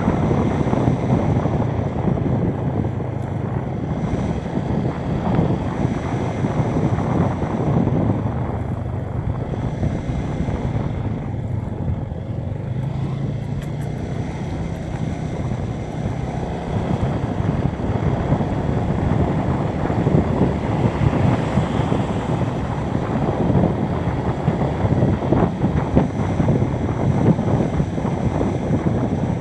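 Motorcycle on the move: the engine running steadily under heavy wind buffeting on the camera's microphone.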